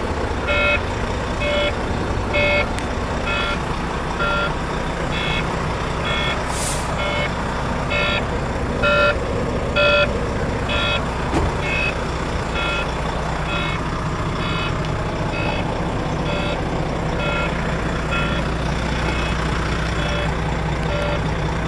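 A Volvo FH 440 truck's dashboard warning buzzer beeps about twice a second. It sounds with the red "stop safely" warning on the display, the alert for a serious fault that calls for stopping the truck. Under it the cab is filled by the steady low drone of the idling 13-litre six-cylinder diesel, with a short hiss about six and a half seconds in.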